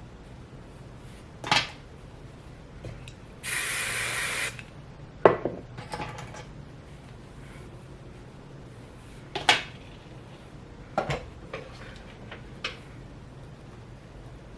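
One hiss of a spray, about a second long, a few seconds in. Around it come a handful of short knocks and clicks as hair tools and objects are picked up and set down.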